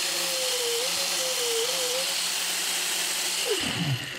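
Electric angle grinder with a cut-off wheel running at full speed, cutting through a taped PTFE (Teflon) fuel line, its whine dipping slightly a couple of times as the tube meets the wheel. About three and a half seconds in it is switched off and the whine falls away as the wheel spins down.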